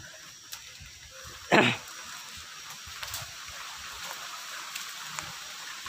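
A hunting dog gives one short, loud bark about a second and a half in, over a steady background hiss.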